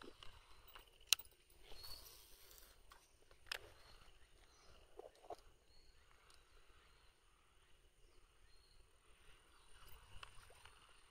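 Quiet outdoor background with a few sharp, scattered clicks and knocks from handling the rod and reel close to the microphone, the loudest about a second in, and faint high chirps now and then.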